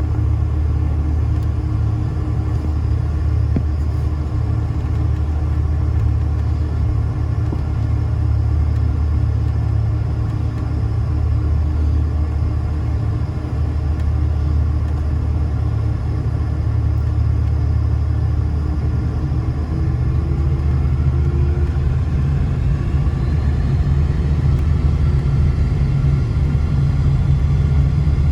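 Boeing 747-400's Pratt & Whitney PW4056 turbofan engines heard from inside the cabin: a loud, steady low rumble. Past the two-thirds mark a whine rises in pitch and the sound grows louder as the engines spool up.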